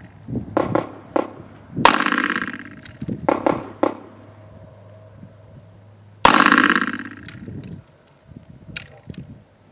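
Two shots from a Smith & Wesson Model 629 .44 Magnum revolver, about four seconds apart, each ringing out and dying away over about a second. Fainter sharp cracks come between and after them.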